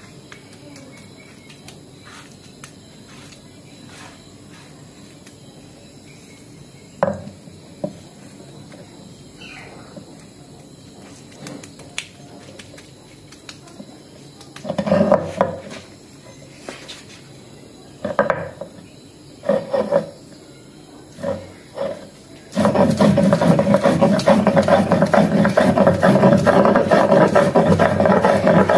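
Stone grinding pin rubbed back and forth on a flat stone slab (sil-batta), grinding wet spice paste. A few short grinding strokes come from about halfway through, then a loud, continuous rapid rasping of stone on stone in the last quarter.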